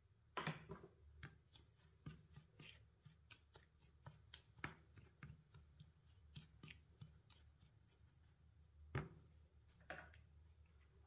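Silicone spatula stirring flour and sugar in a glass bowl: soft, irregular scrapes and taps against the glass, a few a second, with a louder knock near the start and another near the end.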